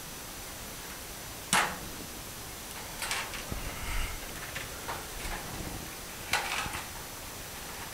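Hands working loose wires against a ceiling fluorescent fixture's metal housing: a sharp click about a second and a half in, then scattered small clicks and scrapes, and another click toward the end, over a steady faint hiss.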